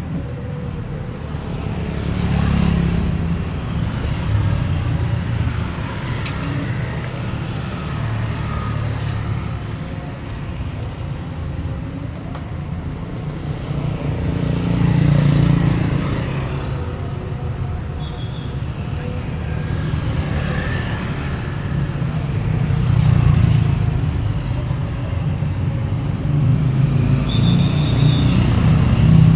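Road traffic on a street: a steady rumble of engines and tyres, with vehicles passing close and swelling louder three times, about two seconds in, mid-way and about three-quarters through.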